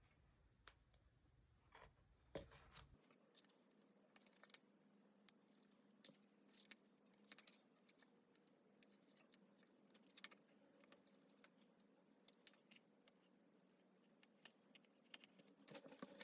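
Faint, irregular snips and clicks of small scissors cutting paper and stickers, with light paper handling. A faint steady hum sits underneath from about three seconds in.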